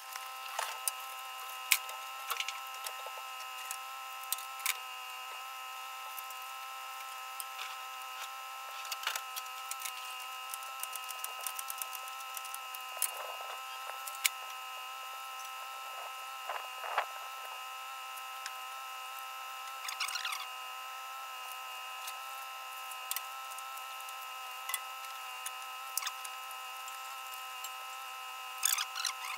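Scattered sharp clicks and taps of a wrench and hands working the hydraulic hose fittings on a Yanmar B22 mini excavator, during a repair of a leaking hose. Under them runs a steady, faint, high-pitched hum.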